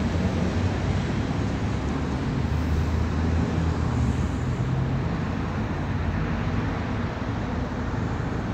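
Steady rumble and hiss of road traffic, with no distinct events; it swells a little around a third of the way in, as if a vehicle were passing.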